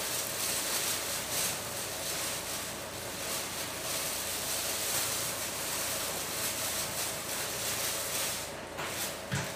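Steady hissing kitchen background noise with a faint hum underneath, and light rustling now and then.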